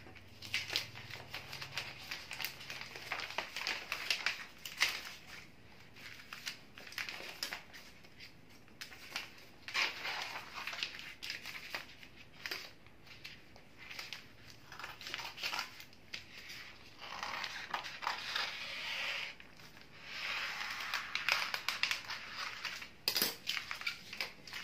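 Sheets of pink bouquet wrapping paper rustling and crinkling as they are handled, folded and creased, with scissors cutting through the paper. The rustling comes in repeated bursts.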